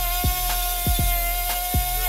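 Background music with a steady drum beat over the steady whine of a small angle grinder, its sanding disc running against the rusty sheet-steel body of a fridge.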